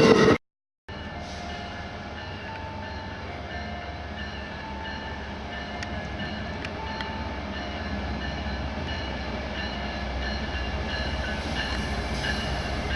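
Train running on the rails: a steady rumble that slowly grows louder, with faint short tones coming and going over it. It starts after a brief dropout to silence about half a second in.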